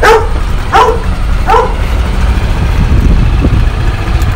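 Wind rumbling on the microphone of a moving golf cart. Three short, loud calls, each falling in pitch, come in the first two seconds.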